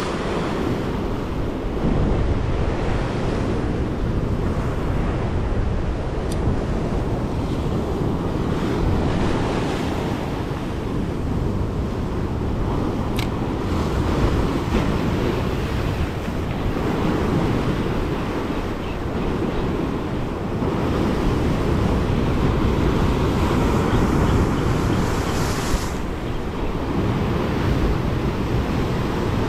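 Sea waves surging and breaking against a rocky shore, with wind buffeting the microphone.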